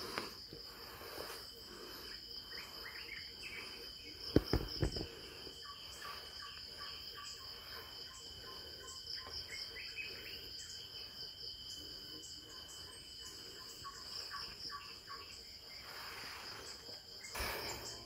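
Insects trilling steadily in a high, fast-pulsing drone. A few sharp knocks come close together about four seconds in.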